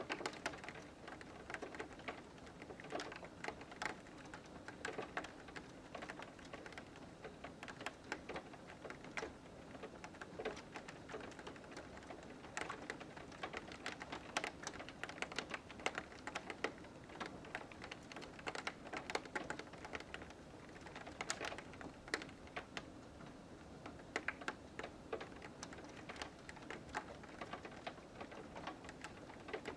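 Light rain pattering on a window, heard from inside: many small, irregular drop ticks over a soft, steady hiss.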